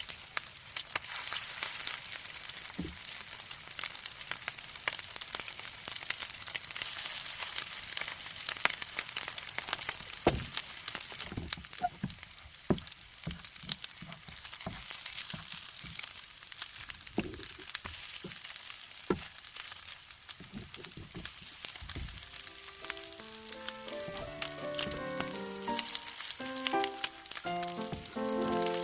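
Rice-and-egg pancake batter frying in oil in a frying pan: a steady sizzle with dense crackling, with a few soft knocks along the way.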